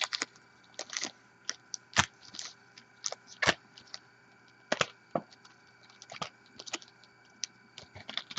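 Trading card packs and their cardboard box being handled and shuffled: irregular light clicks, taps and crinkles, the sharpest about two seconds in.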